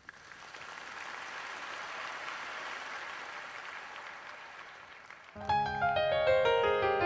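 Audience applause that swells and then fades. About five seconds in, a piano starts a song's introduction with a run of clear notes.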